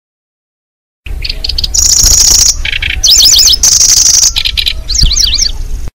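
Kecici belalang bird-lure recording: a small songbird singing phrases of rapid high chirps and buzzy trills. The song starts about a second in and cuts off abruptly at the end, over a low rumble.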